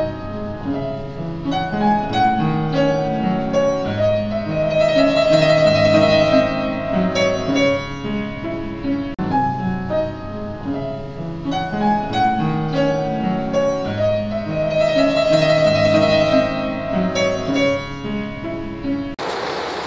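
Upright piano playing a passage, heard twice: first as an audio-only model's predicted binaural output, then, from about nine seconds in, the same passage restarts as the ground-truth binaural recording. Near the end the piano cuts off and a steady rushing street noise takes over.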